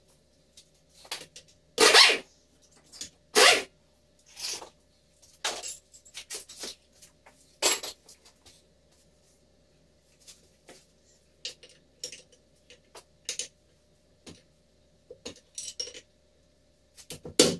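Scattered metallic clanks and clinks of hand tools and loose bolts on the cast housing of a Terex 860 backhoe-loader gearbox as it is unbolted for teardown. Three louder knocks come about two, three and a half and eight seconds in, with fainter clinks between.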